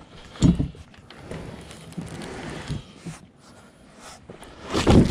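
A large cardboard box holding a solar panel being slid and scraped across a pickup's tailgate onto a cart. There is a sharp thump about half a second in, scraping in the middle, and a louder thump near the end as the heavy box nearly gets away.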